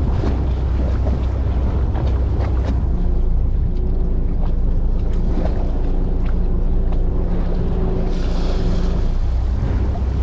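Steady low rumble of wind on the microphone and sea around a small fishing boat at sea. A faint steady hum comes through from about three seconds in, with scattered small knocks, and a short hiss near the end.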